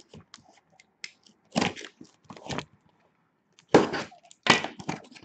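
Plastic shrink wrap being torn and crumpled off a cardboard hockey-card hobby box, in several short crackling bursts.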